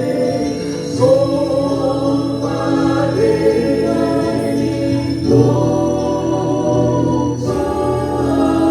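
A six-piece music ensemble performing sustained chords that change every second or so, with a choir-like, sung quality.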